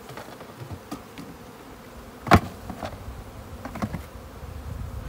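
Honeybees buzzing steadily around an open hive as wooden frames of bees are moved from a nuc box into the hive body. A sharp knock a little before halfway through is the loudest sound, with a few lighter wooden clicks around it.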